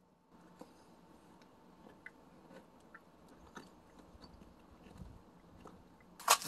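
A teething Jindo puppy gnawing a pork trotter bone: faint, scattered clicks and crunches of teeth on bone. A single sharp, loud knock comes near the end.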